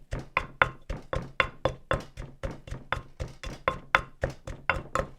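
Pestle pounding in a mortar, about four steady knocks a second, smashing cooked tomatoes with chili and cilantro into a chunky Hmong spicy tomato sauce (kua txob txiv lws).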